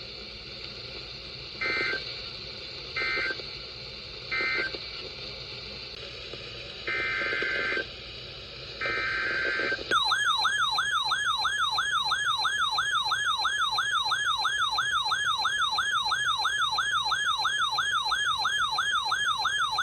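Emergency Alert System tones between two alerts: three short bursts of data-burst screech, then two longer bursts. About halfway through, a loud warbling attention tone starts and sweeps up in pitch about three times a second.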